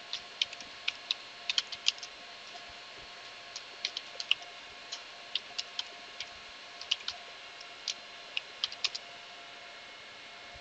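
Computer keyboard keystrokes: irregular typing in two runs with a short pause between them, stopping about nine seconds in. A faint steady hiss runs underneath.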